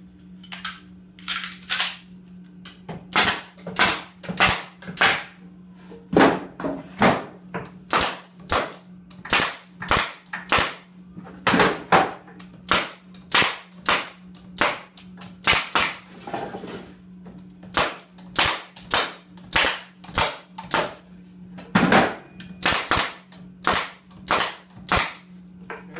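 Pneumatic crown stapler driving 1.5-inch crown staples into the wooden pieces of a five-frame nuc box: dozens of sharp shots, one to two a second, over a steady low hum.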